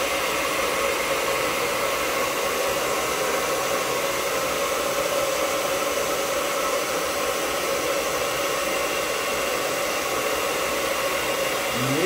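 Handheld hair dryer running steadily: a constant rush of blowing air with a faint, even motor whine.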